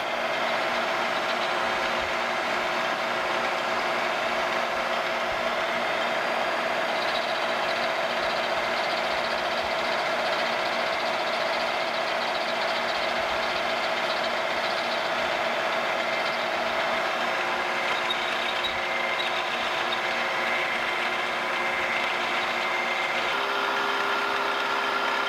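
Milling machine running with a small end mill cutting brazing brass out of the bottom of a bore in a control lever: a steady machine hum with several held tones over a cutting hiss. The tones shift about two seconds before the end.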